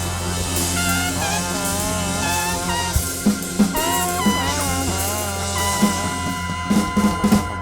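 Live soul band playing a closing vamp: a held bass note under wavering melodic instrument lines, with drum hits and fills growing busier in the second half.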